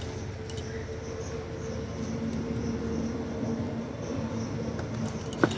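A steady low mechanical hum with a faint drone that rises in pitch about two seconds in, ending with a couple of sharp knocks.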